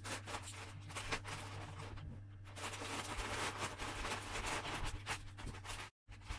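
Clear plastic parts bags crinkling and rustling as they are picked up and sorted through, densest about halfway through.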